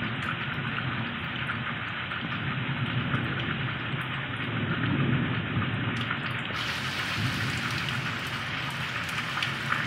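Heavy rain falling steadily on waterlogged, ploughed ground, with a low rumble swelling about halfway through.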